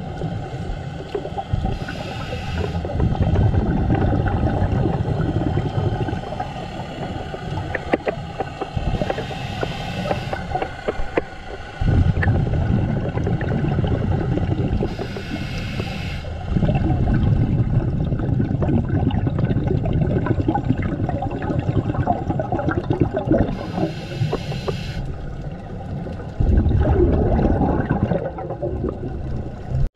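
Underwater scuba breathing heard close to the microphone: a short regulator hiss on each inhale, four times, and low rumbling, gurgling exhaust bubbles between them, in a slow breathing rhythm.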